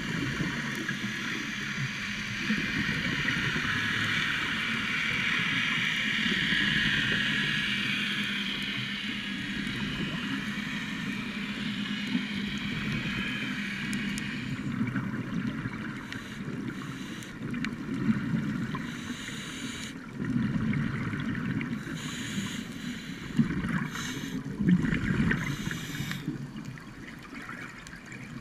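Muffled underwater sound picked up through a camera's waterproof housing: a steady hiss and low hum, turning in the second half into uneven gurgling bursts of scuba divers' exhaled regulator bubbles.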